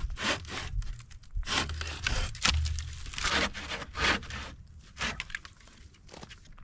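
Dry dead wood being worked by hand for a campfire: a run of irregular scraping and crunching strokes, closer together at first and thinning out, quieter, over the last couple of seconds.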